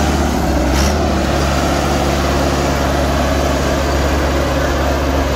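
Millat Massey Ferguson 385 tractor's diesel engine running steadily as the tractor moves off slowly.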